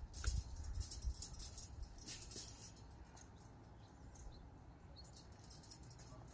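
Wire exercise-pen panels rattling and jingling as a French bulldog puppy yanks on a rope toy tied to them, in quick bursts over the first couple of seconds, then fainter.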